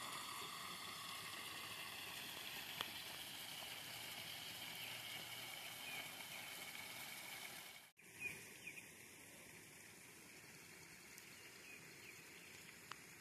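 Faint outdoor ambience: a steady hiss with a few faint bird chirps. It cuts out abruptly about eight seconds in and returns quieter.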